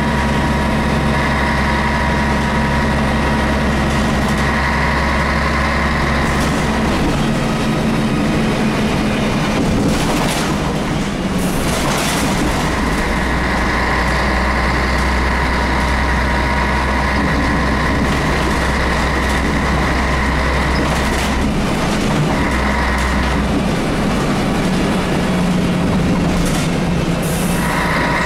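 Scania L113CRL bus under way, heard from above its rear-mounted 11-litre six-cylinder turbo diesel: a steady engine drone whose note changes a few times, with a high whine that comes and goes. Brief knocks and rattles from the bus's loose body panels occur now and then.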